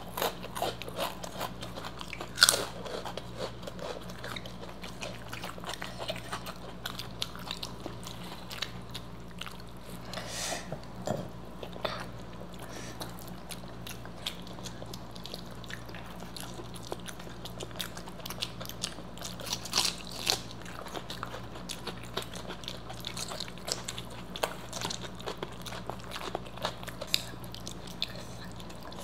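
Close-miked eating: chewing and biting with scattered crisp crunches from fried food such as pakoras and papad, a few crunches louder than the rest, over a faint steady low hum.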